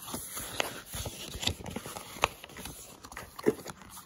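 Paper and cardboard being handled: a greeting card drawn out of a kraft paper envelope, with irregular crinkles and sharp taps, a few louder ones about one and a half, two and a quarter and three and a half seconds in.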